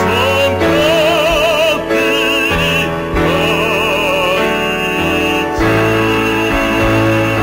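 A man singing in Korean in a full, operatic style, holding long notes with a wide vibrato, over a stage-musical orchestral accompaniment.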